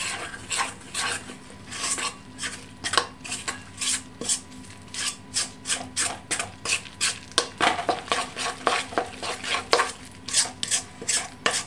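Metal spoon stirring flour, yeast and water into a bread sponge in a stainless steel mixing bowl, scraping and clinking against the bowl's sides in quick repeated strokes, a few a second.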